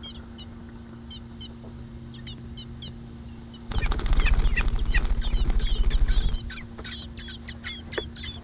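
Nearly fledged American robin nestlings giving short, high cheeping calls in the nest. About four seconds in, one flaps its wings hard for about two and a half seconds, a loud rapid flutter close to the microphone: wing practice just before fledging. A low steady hum runs underneath.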